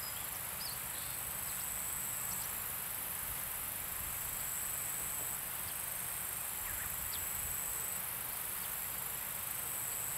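Insects trilling in summer grass: a continuous high-pitched buzz that holds steady throughout. A few short faint chirps rise above it, with a low rumble underneath.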